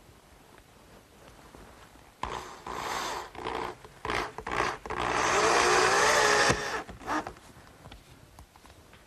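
Power drill driving screws: a few short bursts on the trigger, then one longer run of about a second and a half with the motor's pitch wavering under load, and two brief bursts after it.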